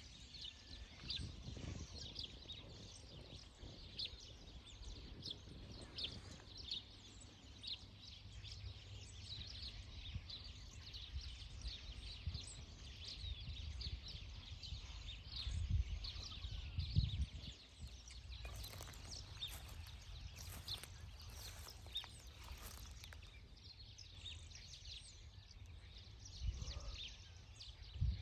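Outdoor garden ambience: small birds chirping in quick short calls, with a low rumble underneath. A few louder low thumps come a little past halfway.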